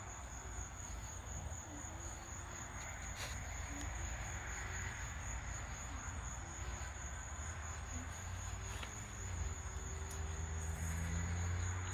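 Crickets chirping steadily in one high, even trill. A low hum grows louder near the end.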